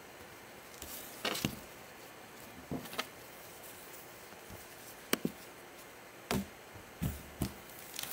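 Scattered short light clicks and knocks, several in quick pairs, from trading cards and a rigid plastic card holder being handled and set down on a tabletop, over a faint steady hiss.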